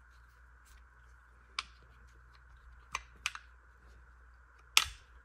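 Sharp metal clicks and clacks of new brake pads shifting in a 1982 Honda CB450T front brake caliper as they are worked into place to line up the pin holes: about five clicks, the loudest near the end, over a faint steady hum.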